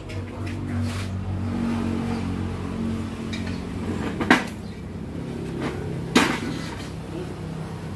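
Two sharp metal clanks, about two seconds apart, as an aluminium engine crankcase is handled on a metal work table, over a steady low machine hum.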